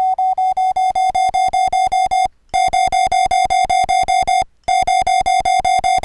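Raw Morse code audio tone, a very harsh beep with strong overtones, keyed in a fast, even string of dits (about nine a second) with two short breaks. This is the unpolished input tone that is converted to MIDI on-off data to key a sine-wave code practice oscillator.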